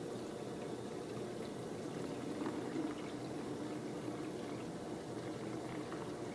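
Water running steadily from a sink faucet and splashing through dreadlocks as hands work them under the stream, rinsing until the water runs clean.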